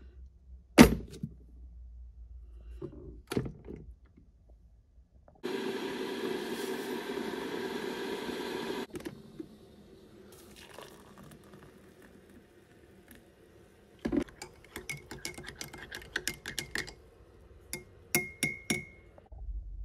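Crockery being handled while coffee is made in a mug: sharp clicks and clinks, a steady rush for about three and a half seconds that cuts off abruptly, and near the end a metal teaspoon stirring and ringing against the ceramic mug in quick clinks.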